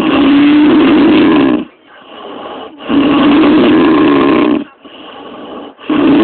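A woman snoring: loud snores about every three seconds, each lasting under two seconds, with quieter breathing between them.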